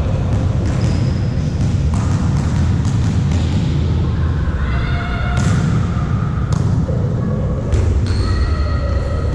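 Volleyballs being hit and bouncing on a gym court: repeated sharp thuds and knocks over a steady low rumble, with a few short high squeaks.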